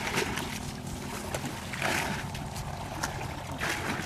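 Shallow muddy water splashing and sloshing as hands scoop and grope through ditch mud, in short irregular splashes, with a faint steady low hum underneath.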